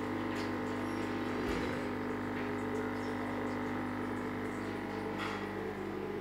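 Aquarium pump humming steadily, with a wash of moving water in the tank.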